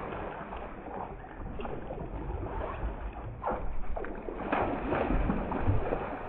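Noise on board a bass boat: a steady rushing haze with a few scattered knocks as anglers move about the deck and work their rods.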